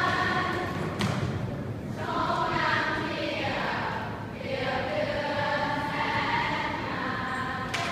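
A large group of voices singing together in unison, with a sharp knock about a second in and another near the end.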